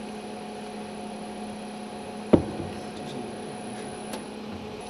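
Steady electric hum of a small benchtop liquid-filling machine running while it fills glass bottles with oil, with one sharp knock a little before halfway.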